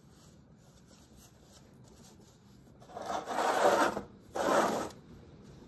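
A hand rubbing across a clay-smeared work board: two rough strokes about three seconds in, the second one shorter.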